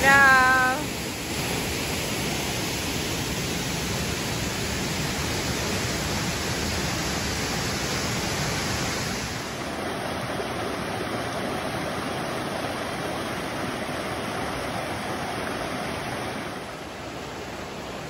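Rushing water: a waterfall pouring into its rock pool, then a stream running over stones, as a steady roar of noise. It changes character about halfway through and gets quieter near the end. A brief high pitched call sounds at the very start and stops within the first second.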